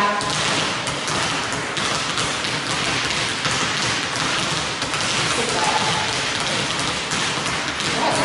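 Many basketballs dribbled at once on a hardwood court: a dense, steady patter of overlapping bounces that blurs into a rain-like sound.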